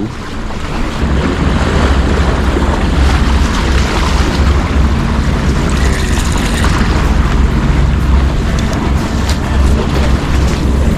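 Wind buffeting the microphone over the wash of the sea, a loud, steady, gusting rumble.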